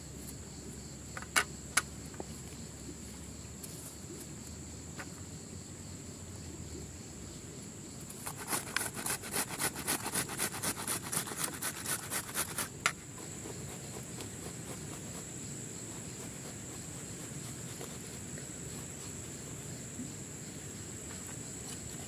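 Tomato being grated on a flat metal hand grater: a regular rasping, about five strokes a second, for some five seconds midway through, with two sharp clicks shortly after the start. Insects keep up a steady high-pitched chirring throughout.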